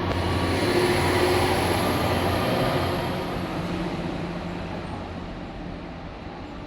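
Train moving through the station, loudest about a second in, then fading away steadily as it moves off. A low hum drops out partway through, and a thin high whine sounds over the rumble.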